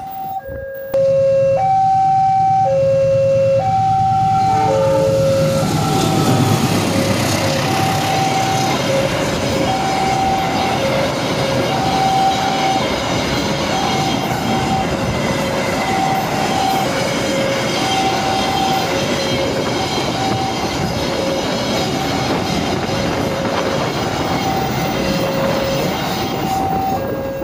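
Railway level-crossing warning alarm sounding an alternating two-note tone, about one note a second, while a container freight train's wagons run past on the rails with a steady rumble and clatter that grows a few seconds in.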